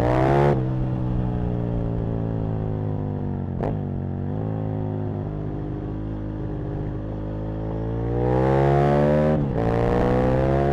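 Aprilia RSV Mille's V-twin engine heard from the rider's seat, pulling with revs climbing and dropping through gear changes: a shift about half a second in, a brief sharp dip at about three and a half seconds, and a long climb from about seven and a half seconds that breaks off with another shift near nine and a half seconds before the revs build again.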